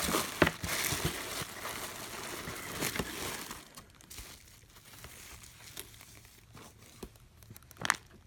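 Plastic packaging crinkling and rustling as it is handled, with small clicks. It goes quiet after about three and a half seconds, leaving scattered light clicks and one sharper click near the end.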